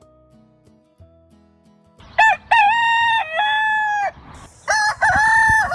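A domestic rooster crowing twice. The first cock-a-doodle-doo comes about two seconds in, and the second starts near the end.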